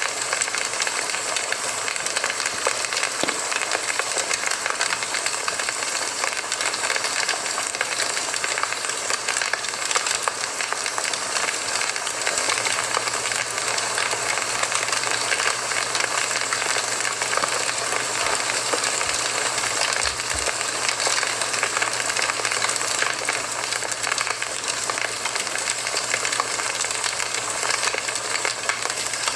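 Campfire burning: a steady hiss of the flames with many small crackles and pops from the burning wood.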